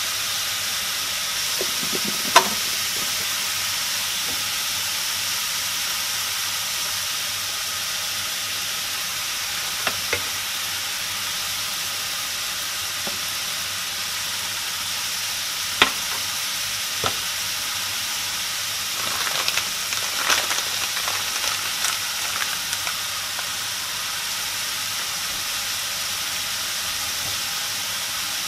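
Shredded carrots, bell peppers and green onions sizzling steadily in hot oil in a stainless steel frying pan. A few sharp clicks come through, and there is a short run of clatter about twenty seconds in.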